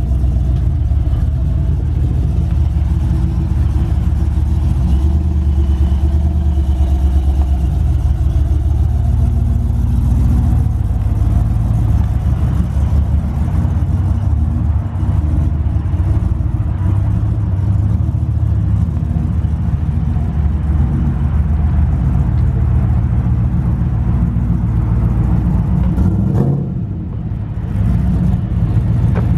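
Lowered single-cab GMC Sierra pickup's engine running at low speed as the truck creeps along, a steady deep rumble. Near the end it briefly drops in level, then picks back up with a rising pitch.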